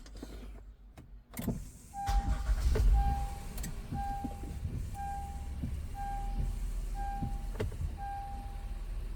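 2017 Honda Pilot started with its push button: a click, then the engine cranks and catches with a loud surge before settling into a steady idle. Over the idle, an in-car warning chime beeps about once a second.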